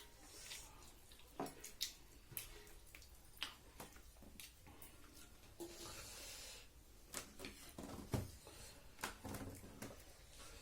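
Close-up eating sounds: chewing and mouth smacks with many small sharp clicks throughout, and a brief rushing noise about six seconds in.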